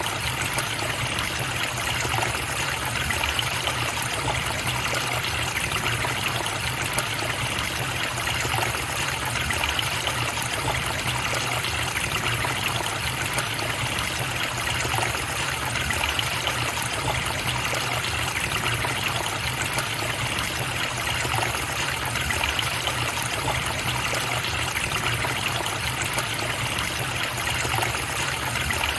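A stream or small river running steadily, water trickling and splashing over rocks with an even, unbroken rush.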